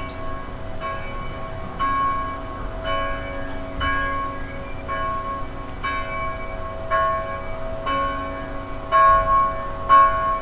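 Church bells pealing, with a ringing stroke about once a second that grows louder near the end.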